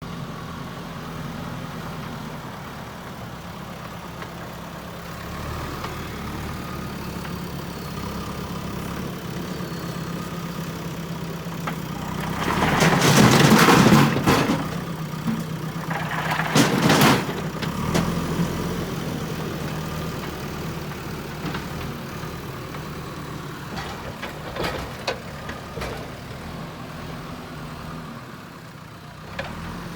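Diesel engine of a JCB backhoe loader running steadily, with two loud bursts of noise a few seconds apart near the middle and a few lighter knocks later.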